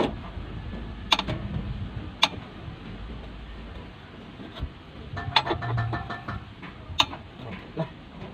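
A few sharp metallic clicks and taps, a second or more apart, from hand tools and parts being handled under a truck.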